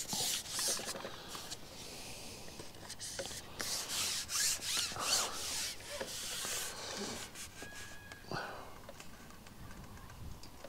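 Hands working damp groundbait and dead red maggots into a small ball: a run of short rustling, rubbing scrapes.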